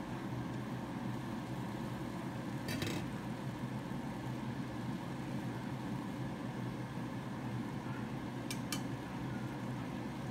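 Stir-frying sliced squash in a nonstick pan over a steady low kitchen hum. A utensil clacks against the pan about three seconds in, and there are two quick taps near the end.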